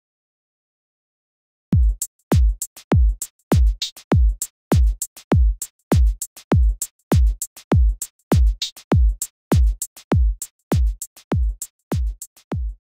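Electronic background music: a drum-machine beat of deep kick drums, about two a second, each sinking in pitch, with sharp clicks between them. It starts after a second or two of silence and eases off slightly near the end.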